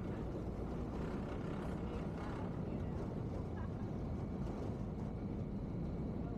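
Steady low rumble of a passenger ferry under way, its engines and churning wake heard from the open stern deck.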